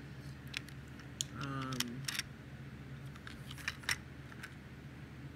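A handful of light clicks and taps from a plastic toy train coach being handled and set down, with a short hum falling in pitch about a second and a half in.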